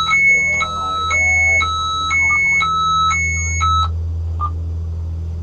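Electronic alarm on the boat sounding a repeating two-tone beep, low then high, about one pair a second, that stops about four seconds in. A steady low hum runs underneath.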